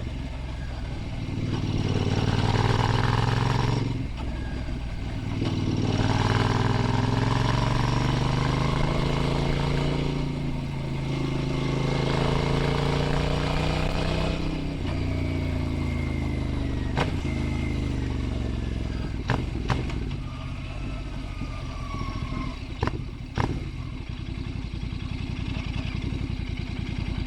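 Royal Enfield Bear 650's 648 cc parallel-twin engine under way: it revs up and eases off several times, then runs more steadily at lower revs. A few sharp knocks come near the end.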